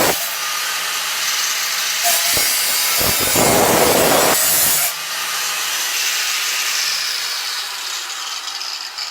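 Total angle grinder with a reinforced cutting disc running at full speed, grinding harshly into the metal of an aerosol spray can for a few seconds, then whining freely off the cut and slowly falling in pitch and level near the end.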